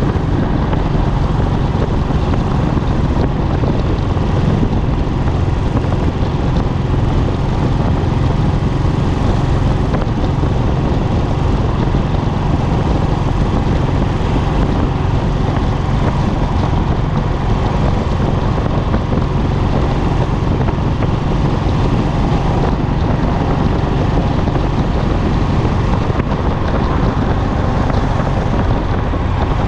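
Royal Enfield Classic's single-cylinder engine and exhaust running steadily at a constant cruising speed, heard from the handlebar, with wind and road noise over it.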